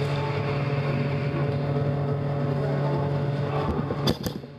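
A steady low machine-like hum with overtones, which fades out about three and a half seconds in; a few sharp snaps follow near the end.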